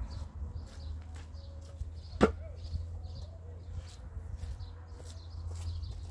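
Hollow concrete block knocked down onto a stack of blocks: one sharp clack about two seconds in. Birds chirp faintly throughout, over a low steady rumble.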